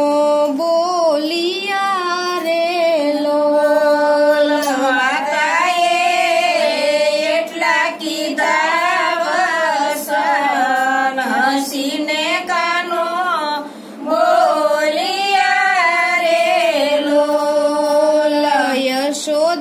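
Women singing a devotional bhajan without instruments: a slow, melismatic melody line, with one short breath-pause about two-thirds of the way through.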